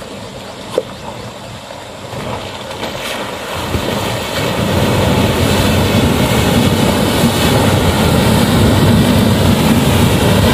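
Toyota Fortuner SUV wading through a shallow, rocky river: its engine grows louder from about four seconds in as it approaches, with water splashing around the tyres. A single sharp click about a second in.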